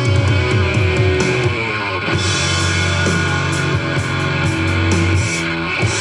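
Rock music led by electric guitar, with no singing.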